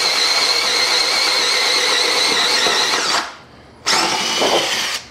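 Cordless drill with a 1-1/4-inch Bosch spade bit boring through a wooden board, running with a steady whine. It stops about three seconds in, then a second short burst of drilling follows, finishing the hole.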